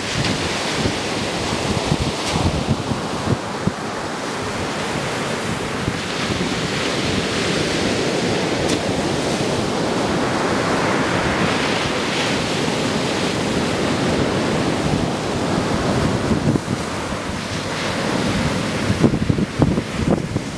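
Ocean surf breaking and washing up a sandy beach, a steady rushing wash that swells midway, with wind buffeting the microphone in gusts, strongest near the end.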